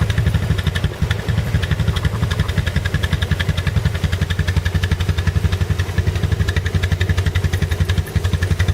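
Four-wheeler (ATV) engine running steadily at low revs, its exhaust pulsing evenly with no rise or fall in speed.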